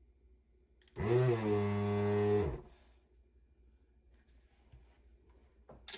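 An electric desoldering tool's vacuum pump runs for about a second and a half, sucking molten solder off a circuit-board joint. Its hum comes up to pitch at the start and sags as it stops, followed by a few light clicks near the end.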